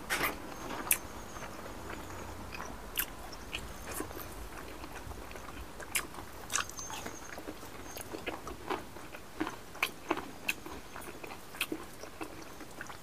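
Two people chewing pork and rice, with irregular wet mouth clicks and lip smacks every second or so.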